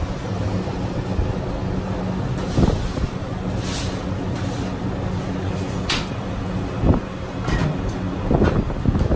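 Steady low mechanical hum of a street-food stall, with a few short sharp clicks and scrapes from the cook's utensils at the griddle.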